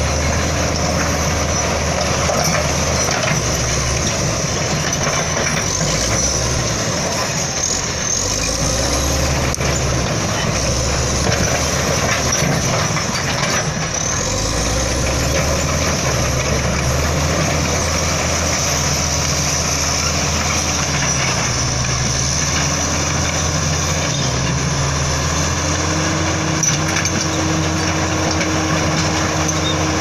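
Komatsu D85E-SS crawler bulldozer's diesel engine running steadily as the machine works, its pitch rising and falling several times as the load and throttle change.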